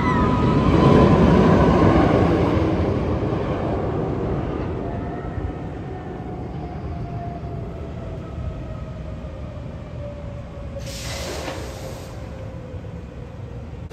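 Kingda Ka roller coaster train rolling past on its track: a loud rumble peaks about a second in and fades, followed by a slowly falling whine as the train runs on. A short hiss of air sounds about eleven seconds in.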